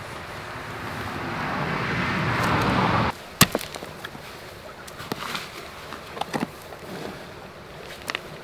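A rush of noise, wind or a passing vehicle, grows louder and stops abruptly about three seconds in. Then come scattered footsteps with sharp clicks and knocks, the first the loudest.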